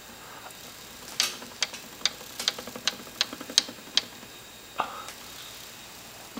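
Columbia BC Higham amplifier cylinder phonograph giving a run of sharp ticks, about two or three a second, for about three seconds, then a single click about a second later.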